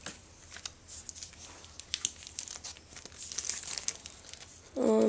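Paper and plastic packaging crinkling and rustling in a series of small crackles as a white document packet is handled and pulled open. Near the end, a brief vocal sound from a person.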